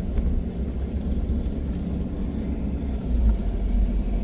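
A truck driving slowly, giving a steady low rumble of engine and road noise.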